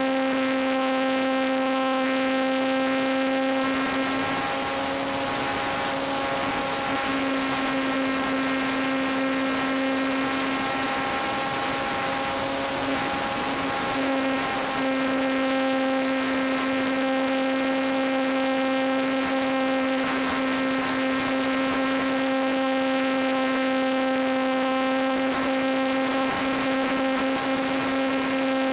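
Electric motor and propeller of a ParkZone T-28 Trojan RC plane heard from on board in flight: a steady, loud whine with a hiss of rushing air, the pitch wavering a little in the middle.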